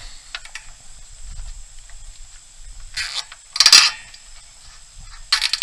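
A plastic zip tie being ratcheted tight around a bundle of solar cables on a steel racking rail: three short zips, the loudest a little past halfway through.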